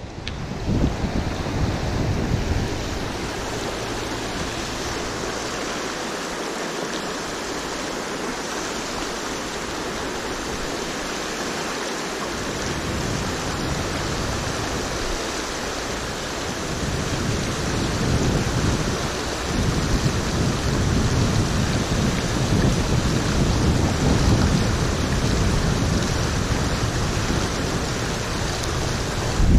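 Steady rush of a flowing river, with wind buffeting the microphone in low rumbles that come on strongest in the second half.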